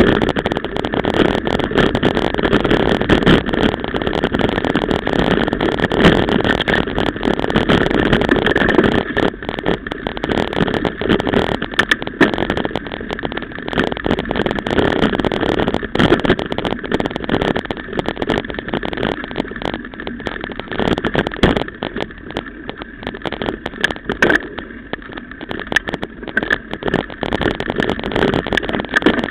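Mountain bike ridden fast over a rough dirt trail, heard from an action camera mounted on the bike: a steady rumble of tyres on dirt with constant rattling knocks from the frame and camera mount, easing somewhat in the second half.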